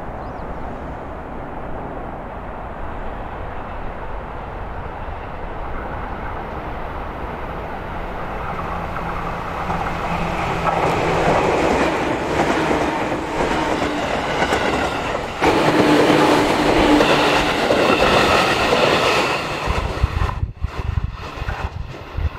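A JR 211-series electric commuter train running on the track, getting louder as it nears and passes close by. Near the end the sound drops back and low thumps come in.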